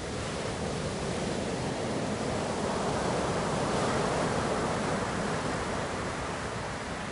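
Ocean waves washing onto a shore: a steady rush of surf that swells to a peak about four seconds in and then eases back.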